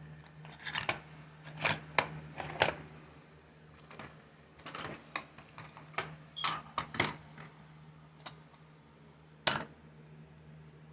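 Small metal items clinking and clattering as they are handled and set down, a dozen or so irregular knocks and clicks, over a faint steady low hum.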